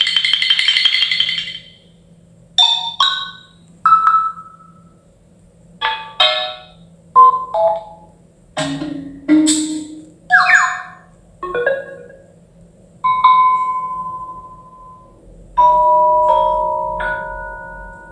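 Samsung Galaxy S25+ notification tones played back greatly slowed, one after another: about ten short, marimba-like chimes of a few notes each, with brief pauses between them. The last chime holds its notes longer.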